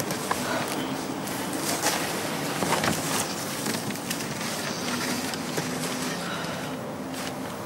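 Cardboard boxes rustling and crackling as they are pulled over a person lying on a wooden bench, with scattered sharp crinkles over a steady background hiss.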